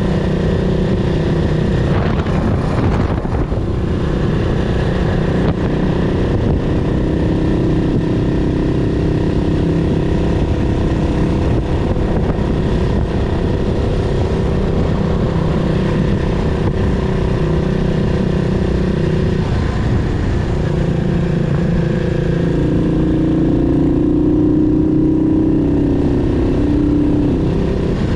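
Yamaha SR400's air-cooled single-cylinder four-stroke engine running under way on a ride. Its pitch shifts with the throttle, rising to a higher note about three-quarters of the way through and dropping back near the end.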